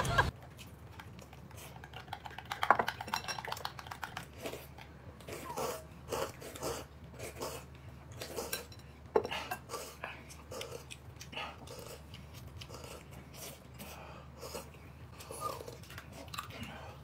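Eating from bowls: chopsticks and spoons clicking against the dishes now and then, with chewing. The sounds are faint and scattered.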